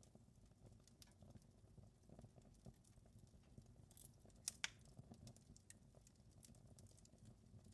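Wood fire in a fireplace crackling faintly, with scattered small snaps over a low rumble of the flames, and two sharper pops in quick succession about four and a half seconds in.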